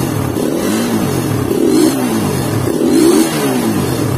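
Suzuki Satria FU's single-cylinder engine revved in repeated throttle blips, its pitch rising and falling about once a second.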